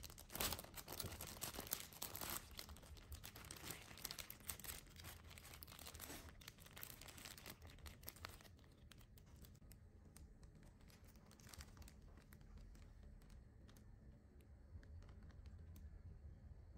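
Faint crinkling and crackling with many small clicks, denser for the first half, then fading to a few scattered ticks.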